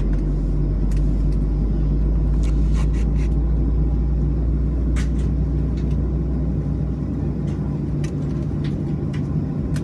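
Steady low rumble and hum of a Boeing 737's jet engines heard inside the passenger cabin, with a few small clicks. The deepest part of the rumble eases about two-thirds of the way through.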